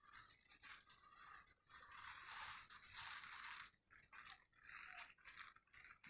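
Plastic snack packet crinkling and rustling as it is handled, in irregular bursts that are strongest about two to three seconds in.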